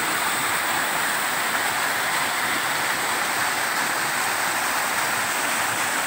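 Waterfall and rocky stream: a steady, even rush of falling and flowing water.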